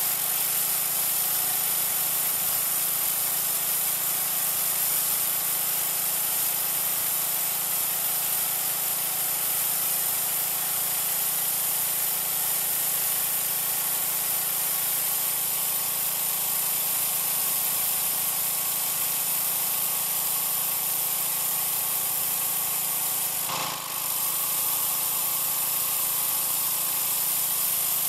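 Troy-Bilt 2200 psi pressure washer running, its engine hum under a steady hiss of water from an oscillating tip blasting concrete. The spray dips briefly once near the end.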